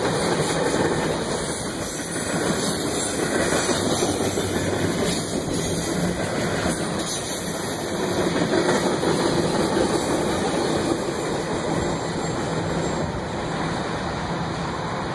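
Freight train of tank cars rolling past close by: steel wheels on the rails making a steady rolling noise. It eases slightly near the end as the last car goes by.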